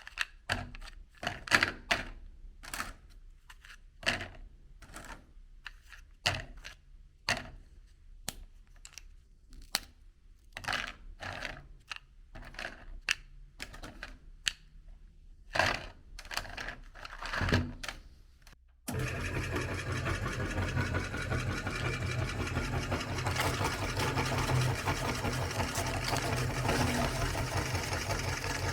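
Irregular clicks and crackles of handling, then an electric meat grinder switches on abruptly about two-thirds in and runs steadily with a dense motor hum.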